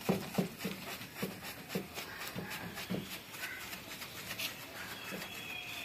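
Cloth rubbing over a plastic headlight lens in short, repeated wiping strokes, about two a second, buffing off dried rubbing compound.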